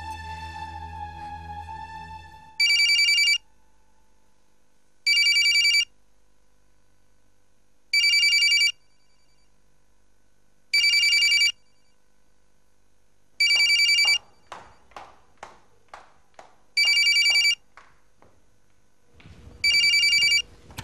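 Landline telephone ringing with seven short electronic rings, each under a second long and coming about every two and a half to three seconds. Music plays before the first ring, and a run of light clicks falls between the rings past the middle.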